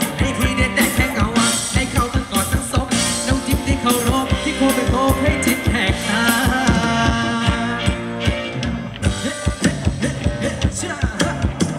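A live band playing Thai ramwong dance music: a steady, even drum beat under a melody line, with some singing.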